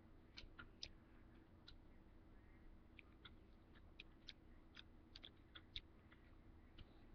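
Near silence: faint, irregular clicks and taps of a table knife spreading pizza sauce over a pizza roll, over a low steady hum.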